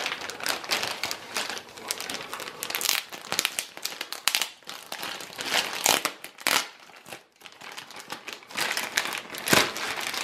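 Clear plastic packaging bag crinkling as it is handled and opened to take out a chair's back cushion. The crackling is irregular throughout, with a brief lull about seven seconds in.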